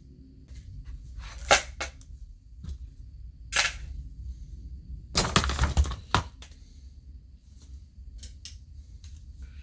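Hardware being handled while a ceiling fan's housing is taken apart: scattered sharp clicks and knocks, with a longer rattle about five seconds in, over a steady low hum.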